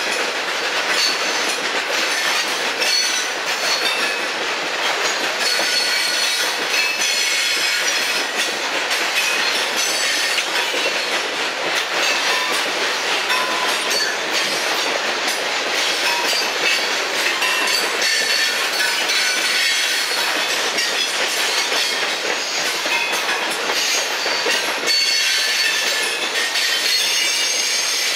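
Loaded hopper cars of a freight stone train rolling past: steady rumble of steel wheels on rail, with high squealing tones from the wheels coming and going.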